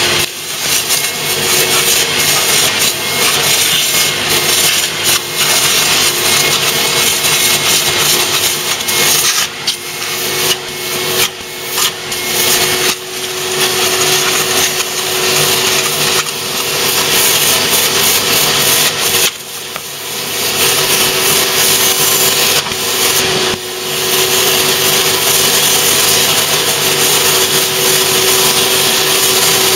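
Upholstery extraction cleaner's vacuum motor running with a steady whine, air and water rushing through the hand nozzle as it is drawn across the wet seat fabric. The rushing dips briefly several times.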